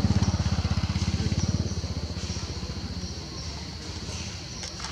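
A small engine passing by, running with a fast even beat, loudest at first and fading away over the next few seconds. A steady high whine carries on underneath.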